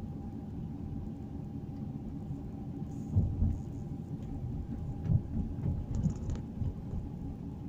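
Road and engine noise inside a moving car's cabin: a steady low rumble with a faint steady whine, and a few bumps about three, five and six seconds in.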